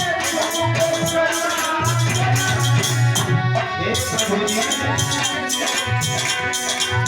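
Bhajan music without words: a drum and a shaker keep a steady beat under sustained melody tones.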